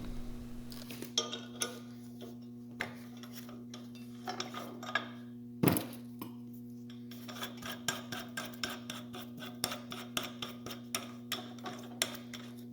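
Irregular metallic clicks and clinks of metal tools and parts being handled, the loudest one about halfway through, over a steady low hum.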